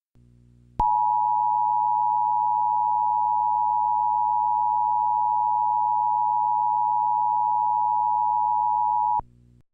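Emergency Alert System attention signal: the two-tone alarm of 853 Hz and 960 Hz played together, held steady for about eight seconds. It starts sharply just under a second in and cuts off abruptly.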